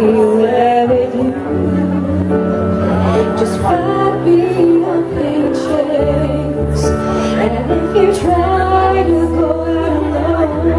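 Slow ballad backing track of held chords and low bass notes, with a young woman singing live into a microphone over it.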